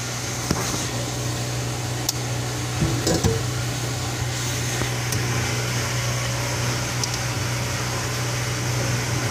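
Steady low mechanical hum, with a few light clicks and knocks about two and three seconds in.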